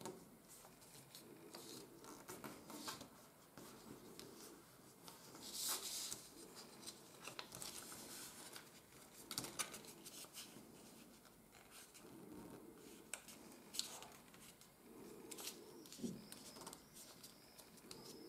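Faint rustling and crackling of coated paper being folded, as fingers press down and smooth its creases, with a few sharper crackles spread through.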